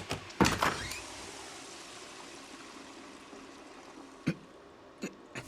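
Toilet flushing: a loud rush of water about half a second in that settles into a steady hiss, slowly fading. Two short knocks come near the end.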